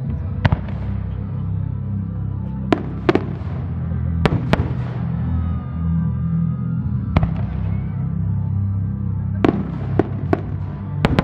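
Aerial fireworks going off in a dozen or so sharp bangs, several in quick pairs, each with a short echo. Music plays steadily underneath.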